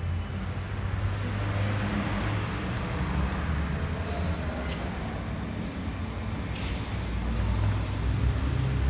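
Triumph Tiger 900 Rally three-cylinder engine running steadily, a low rumble with a noisy hiss above it.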